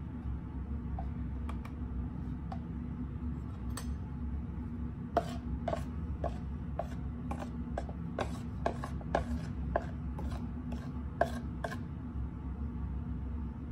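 A metal spoon scooping flour from a plastic tub into a plastic bowl: a run of sharp taps and scrapes, about two to three a second, starting about five seconds in.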